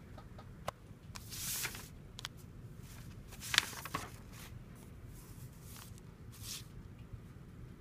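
Handling noise: a few short rustles and clicks as the paper drawings and the pen are moved about, the loudest a little over halfway through, over a faint steady low hum.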